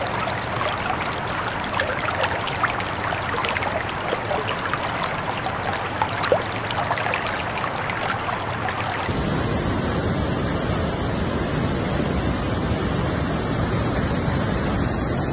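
Rushing floodwater: a steady noisy rush with many small crackles. About nine seconds in it cuts abruptly to a deeper, fuller rush of a flooded torrent.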